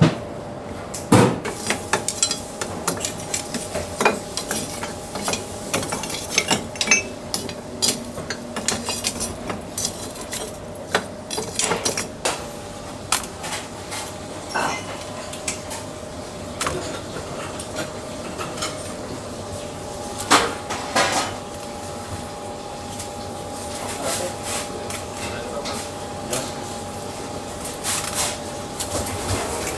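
Kitchen preparation sounds: irregular knocks and clinks of utensils, metal and a knife against a board and dishes, over a steady hum.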